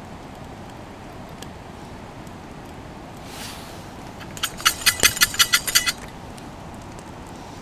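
Coffee beans rattling inside a lidded stainless steel camp pot as it is shaken while roasting over a campfire. About eight quick metallic clattering shakes come in a burst of a second and a half, a little past halfway, with a wood fire crackling faintly underneath.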